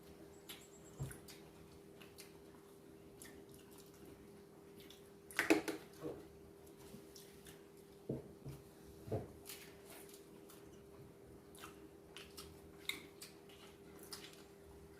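Faint eating sounds: scattered small clicks and smacks of chewing and handling food, with a louder bout about halfway through, over a steady low hum.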